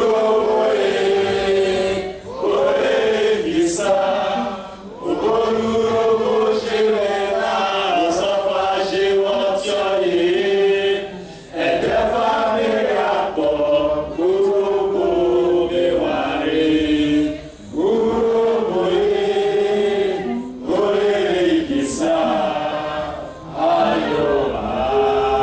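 Many voices singing together in unison, in long held phrases with brief breaks between them.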